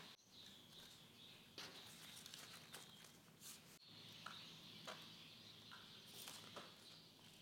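Near silence, with a few faint, scattered snips of scissors cutting folded paper over quiet room tone.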